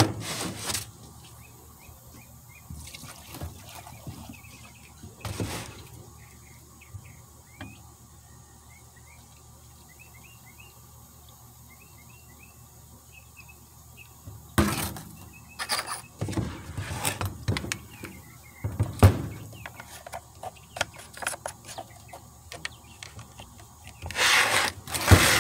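Small birds chirping in the background through the first half. From about halfway in come repeated knocks and clatter as a gas chainsaw is handled while being refuelled; these are the loudest sounds.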